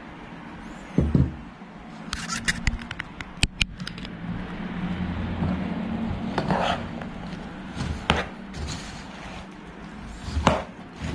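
A metal spoon stirs and scrapes a thick mix of broken biscuits and chocolate syrup in a nonstick pan. There are several knocks of the spoon against the pan, and a run of quick clicks about two to three and a half seconds in.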